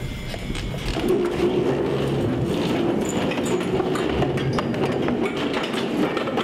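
A classroom full of students getting up and leaving: chairs scraping and knocking, bags being picked up and feet shuffling, a dense, continuous clatter of small knocks and scrapes that grows busier about a second in.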